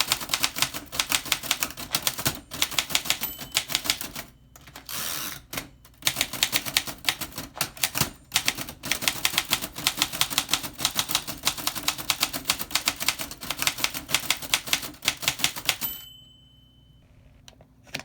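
Typing on a 1927 Remington Portable #2 manual typewriter: a fast run of sharp key strikes, broken by a short pause about four seconds in. The typing stops about sixteen seconds in with a brief ringing tone.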